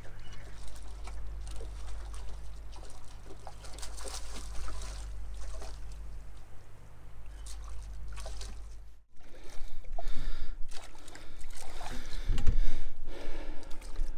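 A hooked bass splashing at the surface as it is played in and landed in shallow water. A steady low rumble sits under the first part. The splashing is louder and closer after a cut about nine seconds in.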